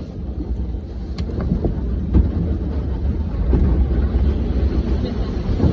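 Automatic car wash running around the car, heard from inside the cabin: a steady low rumble and rush of noise, with a few sharp knocks.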